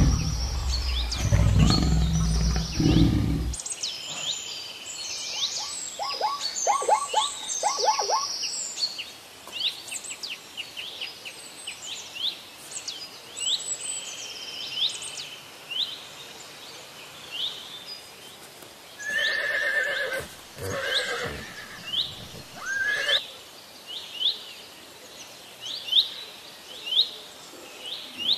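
Recorded wild-animal sounds: a big cat's roar dying away in the first few seconds, a quick run of pitched calls a few seconds later, then high chirps about once a second through the rest, with a few more animal calls about two-thirds of the way in.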